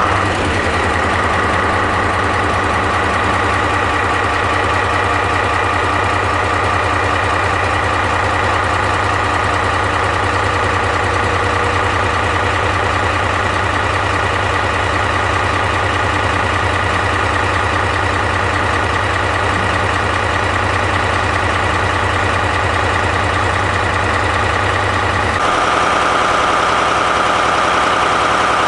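Diesel generator engine of the E001 Shiki-shima cruise train idling steadily just after starting during its mode change, with a low rumble under a steady high whine. About 25 seconds in, the rumble drops back and the whine comes forward.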